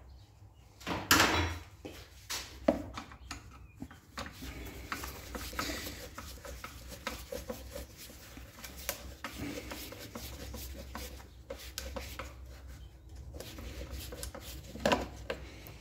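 Irregular handling noises of hand tools on the air compressor's plastic casing: clicks, scraping and rubbing, with two sharp knocks in the first three seconds.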